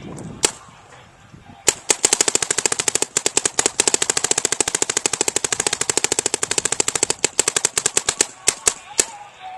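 DLX Luxe 2.0 electropneumatic paintball marker firing in semi-automatic. One shot comes first, then after about a second a fast, even string of shots that lasts about six seconds, and it ends with three more spaced shots.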